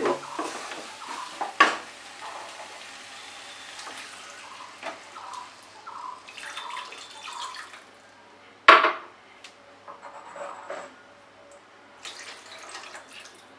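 Water poured from a cup into a pan of fried potato and raw papaya in spice paste, trickling and splashing. Two sharp knocks of utensil or cup against the pan, one about two seconds in and a louder one about nine seconds in.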